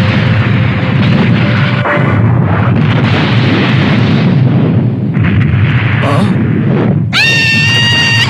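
Cartoon sound effect of a loud, sustained rumbling blast during a kung fu clash. About seven seconds in, a high held tone sweeps up and sustains.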